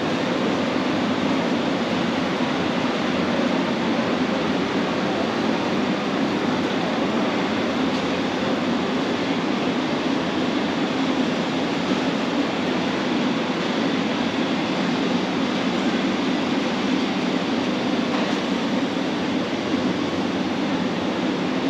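Steady, even rumble of a large warehouse store's interior, with no distinct events standing out.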